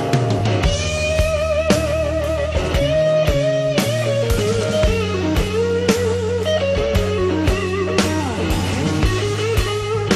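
Background music: a blues-rock electric guitar plays a lead line with vibrato and bends over bass and a steady drum beat.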